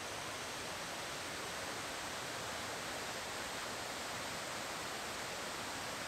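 Steady rushing noise of a river waterfall in high water, quite loud.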